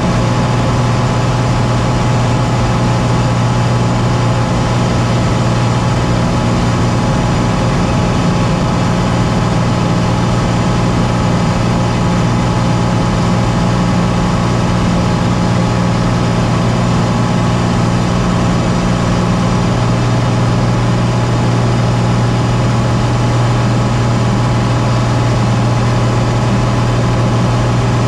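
Small aircraft's piston engine and propeller droning steadily during a descent, a constant low hum with one of its tones dropping away about two-thirds of the way through.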